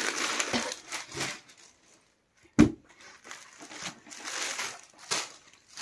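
Unstitched suit fabric being unfolded and handled on the floor, rustling and crinkling, with one sharp thump about two and a half seconds in.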